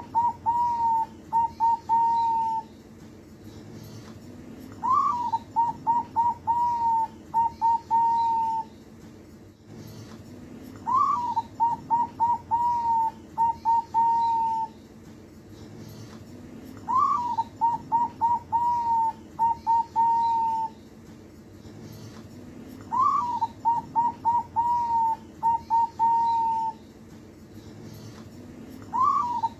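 Young zebra dove (perkutut), about two months old, singing its cooing song. The same phrase comes about every six seconds: a rising opening note, then a quick run of short clipped coos, ending in a longer held note.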